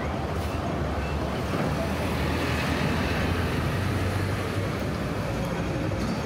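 City street traffic: a motor vehicle's engine running close by, a steady low rumble over general road noise.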